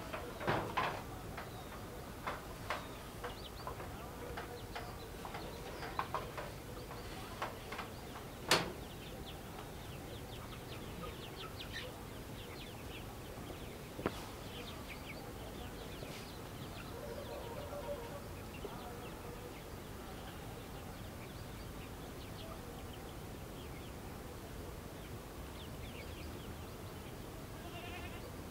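Knocks and clatters from a corrugated-metal livestock shed in the first nine seconds, the sharpest about eight and a half seconds in, with one more knock near the middle. Birds chirp through much of it.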